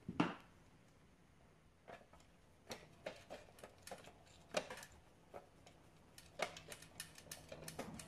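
Light clicks and taps of a circuit board, wires and hand tools being handled and fitted into a sheet-metal box, with one louder knock at the very start and the clicks coming faster near the end.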